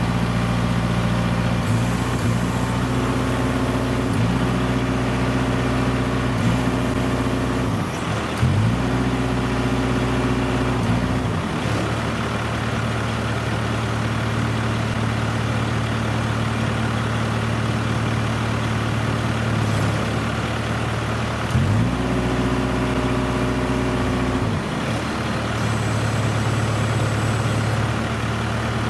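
Heavy diesel engine of a container side-loader semi-truck running, its speed stepping up and back down several times, held higher for long stretches, with a few short bursts of air hiss.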